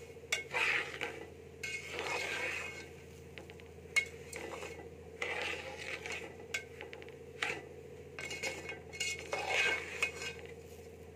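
Metal spoon stirring semolina as it roasts in ghee in a steel pot: repeated scraping strokes against the pot with sharp clinks in between. A steady low hum runs underneath.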